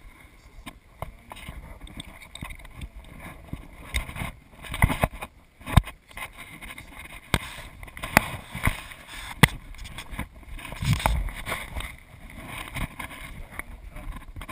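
Close handling noise: cloth rubbing against the microphone, with irregular sharp clicks and knocks from rigging gear being handled and a few louder thumps.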